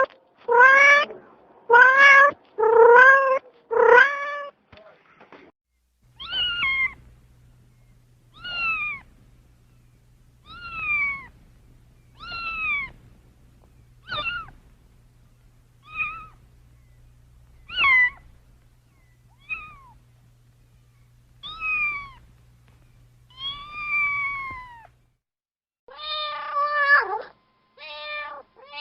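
Cats meowing repeatedly. A quick run of loud meows opens, then about ten shorter meows come one every second or two, each falling in pitch, over a faint steady low hum. Another burst of meows follows near the end.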